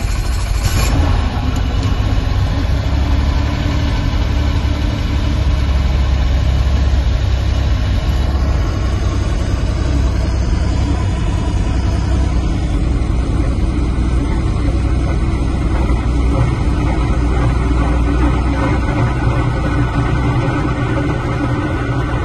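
Small helicopter's engine and rotor running steadily on the ground just after start-up, heard from inside the cabin.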